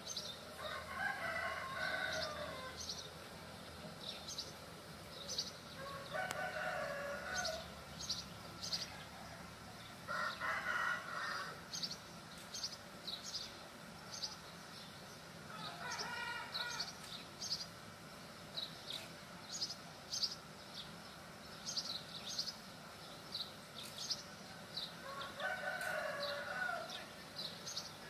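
Rooster crowing five times, each crow lasting about a second, with small birds chirping in short, high notes throughout.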